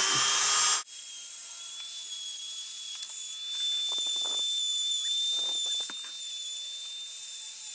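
Dremel rotary tool running at speed with a steady high-pitched whine. Its bit is touched briefly to the steel muzzle brake a couple of times, grinding off the finish to look for a hidden pin.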